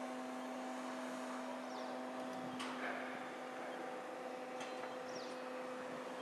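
Crane running with a steady hum while it swings a suspended load, with a sharp knock about two and a half seconds in and another about four and a half seconds in.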